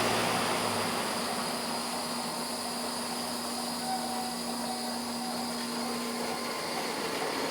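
Hokuriku Railroad 7000-series electric train giving out a steady mechanical hum and noise, with a low drone that stops about six seconds in.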